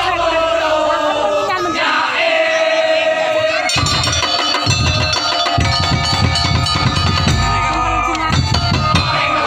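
Live music from a drum-and-gong street troupe: large drums beating under a held, wavering melody line, with crowd voices mixed in.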